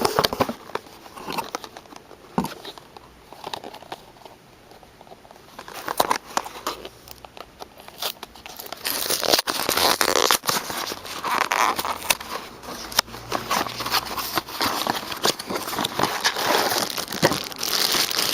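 Packaging of a boxed figure being handled and unwrapped: intermittent crinkling, crackling and tearing, getting busier and more continuous from about halfway through.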